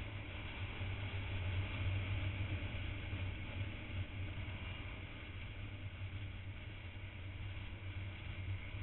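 Onboard sound of a motorcycle riding at speed: wind rushing over the microphone over a steady low drone from the engine.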